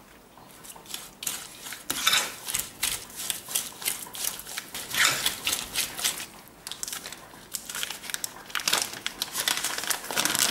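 Fork stirring and mashing a butter, sugar and egg mixture in a glass bowl: a rapid, irregular run of scrapes and clicks against the glass. Near the end the paper wrapper of a pack of cottage cheese crinkles as it is opened.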